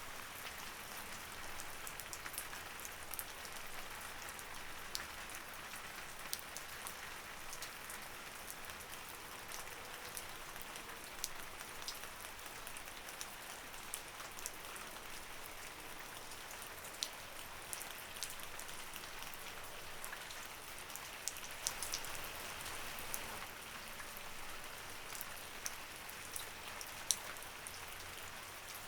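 Light rain falling steadily, a soft even hiss with scattered sharp drips and taps of individual drops.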